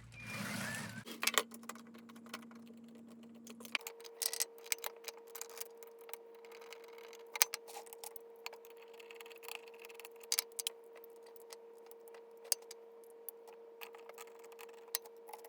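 Scattered light clicks and taps of AAA batteries and a plastic Lego battery box being handled while the batteries are loaded, with a short rustle about a second in.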